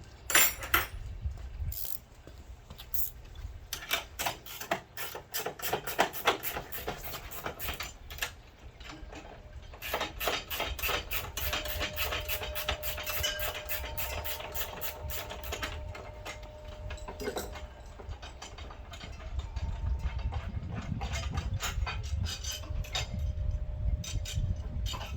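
A hand socket ratchet clicking in quick runs as bolts are worked loose, mixed with metal tool clinks.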